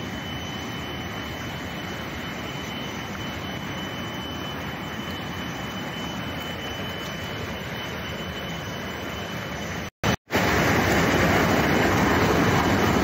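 Steady rushing noise with a faint thin high tone running through it. It cuts out briefly about ten seconds in and comes back louder.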